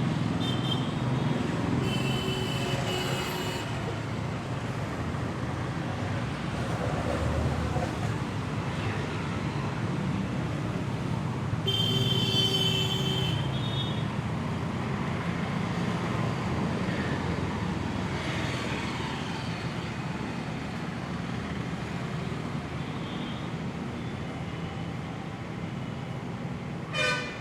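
Steady street traffic noise, with two short high-pitched tones standing out, about two seconds in and about twelve seconds in.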